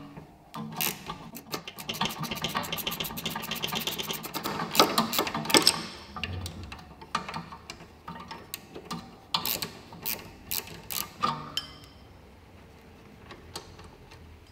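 Ratchet wrench clicking rapidly as the bolts of a VW Golf 5 rear brake caliper are unscrewed, then slower, sparser clicks and metal taps. It goes quiet for the last couple of seconds.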